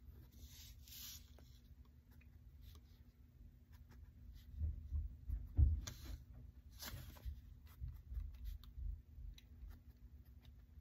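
Sharpie marker scratching short, choppy strokes on sketchbook paper. A cluster of soft low thumps, the hand or pad knocking the table, comes a little before the middle and is the loudest thing heard.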